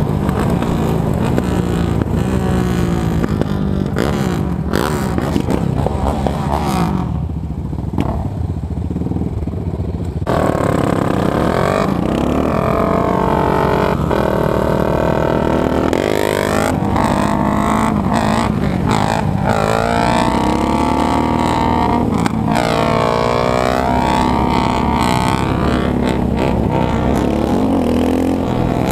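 Sport quad's single-cylinder four-stroke engine running hard at speed, its revs rising and falling repeatedly through gear changes. About seven seconds in the engine eases off for roughly three seconds, then pulls hard again.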